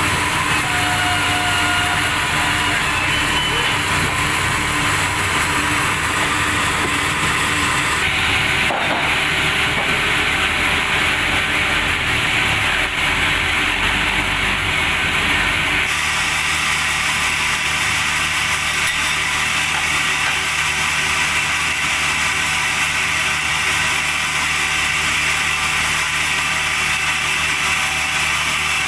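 Log sawmill machinery running loudly and steadily, its saw cutting through timber. The sound changes abruptly twice, about a third of the way through and again just past halfway.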